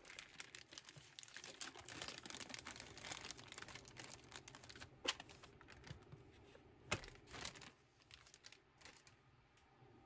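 Faint crinkling of a thin clear plastic bag as a plastic connector organizer box is slid out of it, with two sharp taps about five and seven seconds in.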